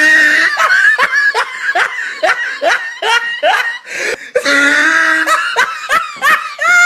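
High-pitched laughter: a held squealing note, then a rapid run of short rising squeals about three a second, another held note about five seconds in, and a few more squeals near the end.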